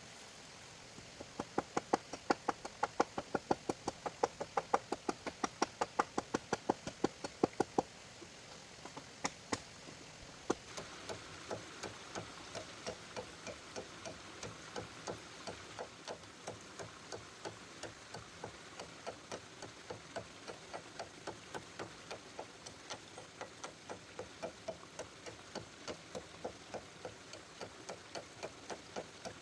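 Rapid, regular knocking strikes, about four a second: loud for the first several seconds, then a pause with a couple of single knocks, then a lighter, steady run of knocks.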